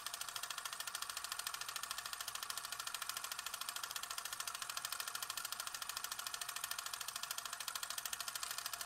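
A small engine or motor running steadily with a fast, even mechanical clatter.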